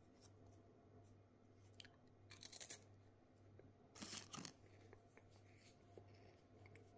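Faint crunches of a bite taken out of a crisp Manner hazelnut wafer: two short crackly bursts about a second and a half apart.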